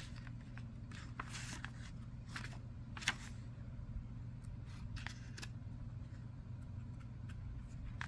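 Paper pages of a guidebook being flipped through by hand: soft rustles and flicks, the sharpest about three seconds in, over a low steady hum.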